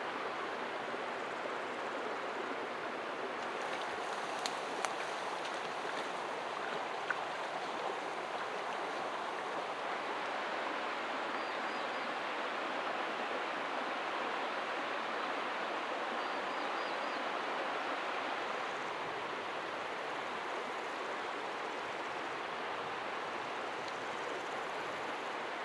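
Shallow, stony stream flowing steadily, an even rushing of water over stones.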